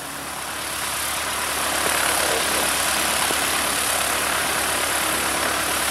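A Cessna 152's four-cylinder Lycoming piston engine and propeller running at low taxi power. It grows louder over the first couple of seconds, then holds steady.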